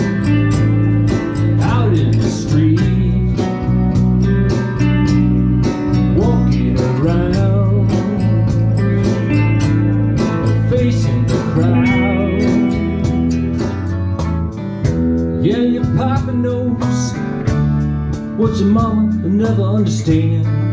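Live band music in a country style: strummed acoustic guitar in a steady rhythm over bass notes, with a voice singing at times.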